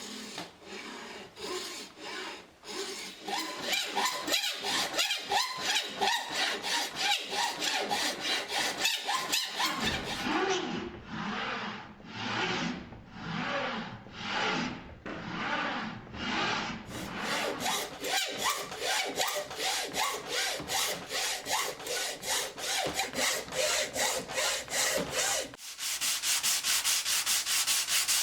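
A hand tool worked back and forth on wood in steady repeated strokes, such as sawing, rasping or sanding by hand. The strokes quicken and get brighter in the last couple of seconds.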